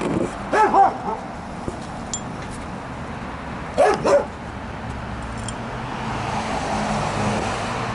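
A dog barking in short pairs, two barks about half a second in and two more near four seconds, as it is teased. A steady low hum runs underneath and grows stronger in the second half.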